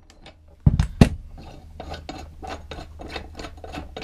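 Air impact wrench on a lawnmower blade bolt: two short bursts about a second in, then a run of quick metallic scraping and clicking as the bolt and the steel blade work loose and come off.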